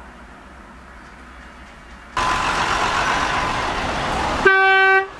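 Faint low hum, then about two seconds in a sudden switch to loud street noise of traffic at a bus station. Near the end a vehicle horn blows one steady note, breaking off briefly before sounding again.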